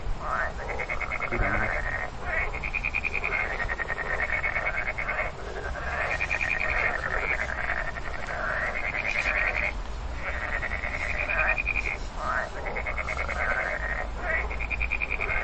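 A frog calling over and over: trains of rapid pulses, each lasting one to three seconds, with short pauses between.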